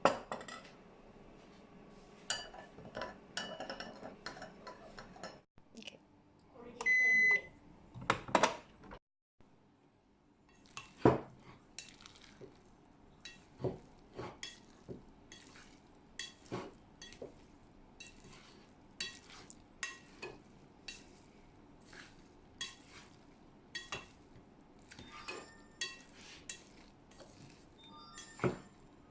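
Dishes and metal utensils clinking and knocking in kitchen handling. A brief steady beep comes about seven seconds in, followed by a run of light clinks, a little more than one a second.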